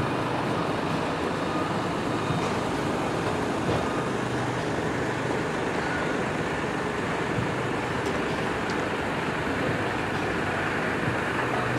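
Steady rumble of heavy trucks' engines idling, with a constant low hum underneath.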